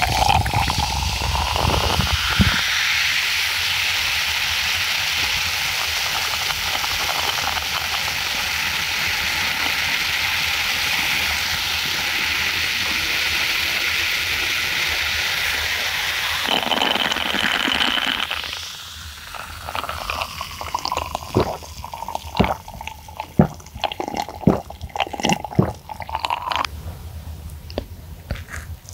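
Coca-Cola poured over ice fizzing in a glass held close to the microphone: a loud, steady carbonation hiss. About two-thirds of the way in the fizz dies down, and scattered sharp clicks and taps follow.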